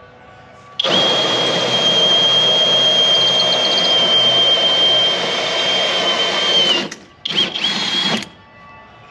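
Cordless drill driving a hole saw through garage siding: one long cut of about six seconds with a steady high whine that drops as the trigger is released, then a short second burst near the end.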